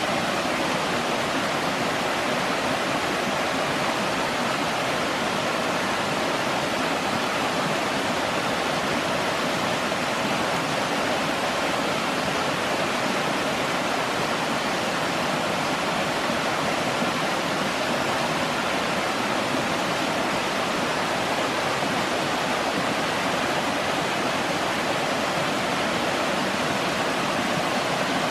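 Water of a forest stream rushing steadily, an even unbroken rush with no change in level.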